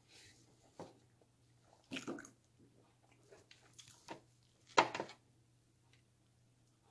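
A few scattered clicks and rustles over a faint, steady low hum, the loudest a little under five seconds in.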